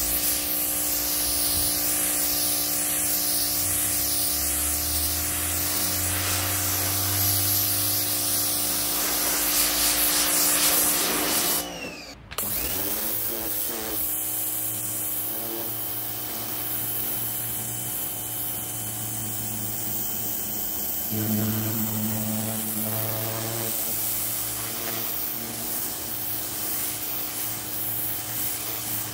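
Parkside PHD 170 D2 electric pressure washer running, its motor and pump humming steadily under the hiss of the high-pressure water jet striking concrete. The sound breaks off briefly about twelve seconds in, then resumes.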